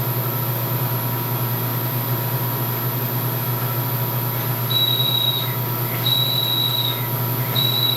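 Vertical milling machine running a 1/4 inch drill at about 830 RPM, with a steady motor hum. From about halfway in, a thin high squeal comes and goes three times as the drill cuts into the metal.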